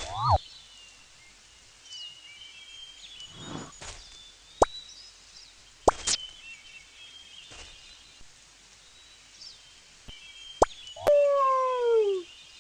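Faint bird chirping throughout, broken by a few sharp pops, and near the end one loud drawn-out call that falls in pitch over about a second.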